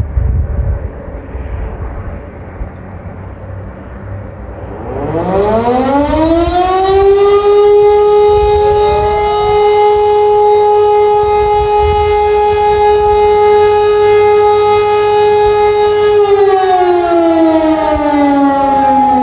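Civil-defence sirens, an E57 electromechanical siren together with an SES, sounding a tone of the fire-brigade alarm signal in a monthly test. About five seconds in, the siren winds up in a rising howl to a steady tone, and a second, higher line joins about nine seconds in. From about sixteen seconds the pitch slowly winds down. A low rumble is heard before the siren starts.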